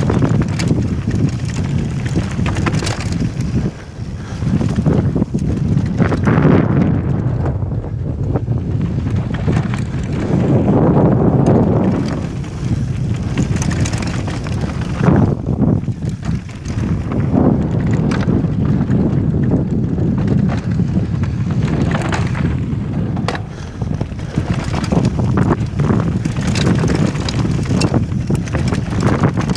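Wind buffeting a helmet camera's microphone as a mountain bike descends fast over loose, rocky trail, with the tyres crunching over gravel and stones and the bike clattering in frequent irregular knocks.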